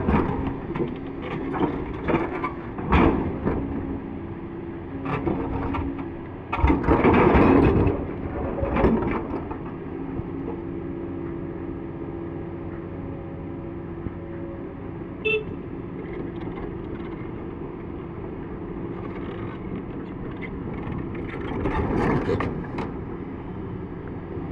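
Excavator's diesel engine running steadily under heavy work, with several louder noisy surges, the longest about a third of the way in and another near the end.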